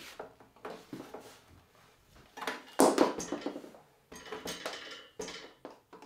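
Clattering knocks and clunks as a Trend T14 router is handled and fitted into its router table's plate, the loudest knock about three seconds in, with a short metallic ringing note a little after.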